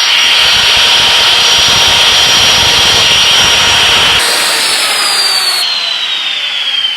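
Electric router with a 1/4-inch bit running at full speed, cutting a hinge mortise in wood, then switched off about four seconds in; its high whine falls steadily as the motor winds down.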